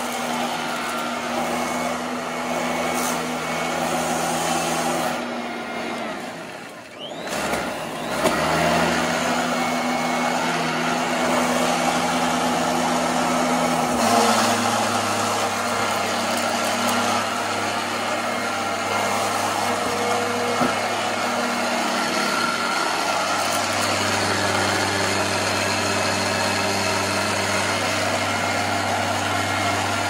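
Royal Commercial 18-inch upright vacuum cleaner running steadily as it is pushed over scattered junk on carpet. Its motor hum dips briefly about seven seconds in, then picks back up.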